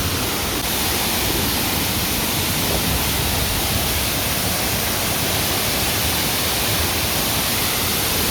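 A large waterfall pouring: a steady, loud rush of falling water.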